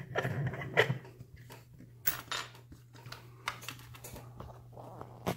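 Scattered small metal clicks and clinks as a solid brass padlock and its picking tools are handled and clamped into a vise, the loudest knock about a second in.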